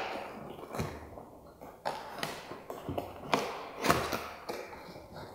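Plastic bag crinkling and rustling in fits and starts, with a few sharp crackles, as a microphone shock mount is handled and unwrapped from it.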